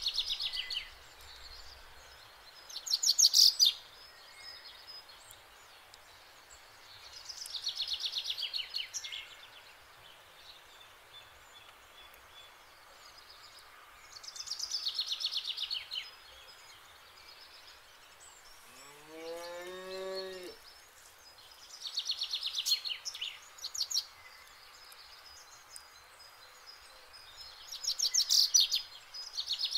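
A cow moos once, briefly, about two-thirds of the way through, its pitch rising and then falling. A bird's fast descending trill repeats about every six seconds and is louder than the moo.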